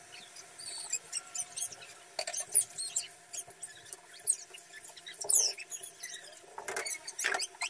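Raw chicken pieces sizzling and crackling as they go into a non-stick frying pan of hot tomato masala and are stirred with a silicone spatula, with many short, irregular squeaks as the spatula and meat scrape across the pan.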